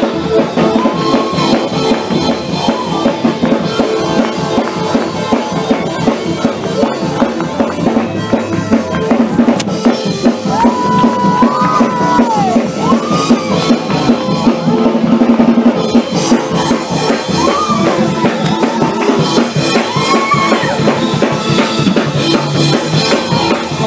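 Church praise-break music: a drum kit played fast and without letup, bass drum and snare, over held chords, with a few high rising-and-falling tones about halfway through and near the end.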